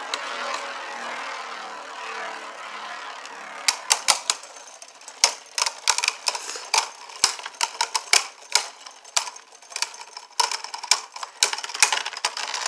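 Spinning Beyblade tops whirring steadily in a plastic stadium. From about four seconds in come many sharp clacks, irregular and sometimes in quick runs, as the tops collide and knock against each other and the stadium wall.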